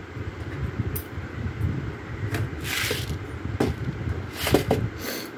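Light kitchen handling sounds: scattered clicks and clinks of a steel tumbler and plastic containers of urad dal, with a short pouring rush about three seconds in, over a steady low rumble.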